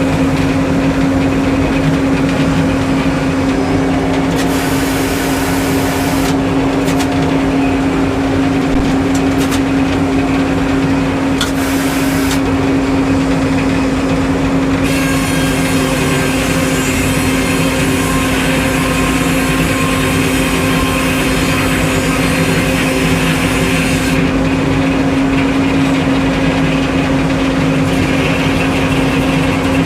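Sawmill engine running steadily at a constant speed. A higher hiss of the saw cutting through wood comes in briefly twice, then runs for about nine seconds from about halfway through.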